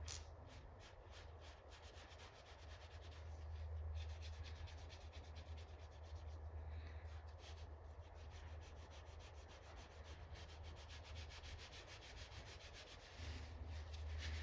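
A rag wetted with lacquer thinner scrubbing back and forth over a painted chrome script emblem, faint quick strokes several times a second, wiping the black paint off the raised letters. A low steady hum lies underneath.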